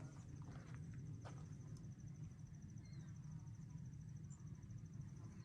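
Faint insect trill, a rapid steady pulsing at a high pitch, over a steady low rumble, with a few footsteps on the trail in the first second or so.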